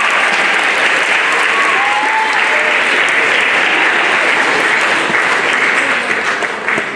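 An audience applauding, loud and steady, thinning out near the end, with a few voices faintly under the clapping.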